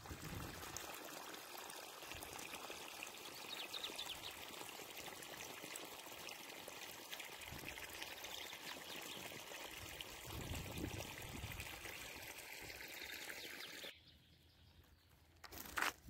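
Shallow stream water flowing and trickling over grass and stones, a steady rushing that stops suddenly near the end.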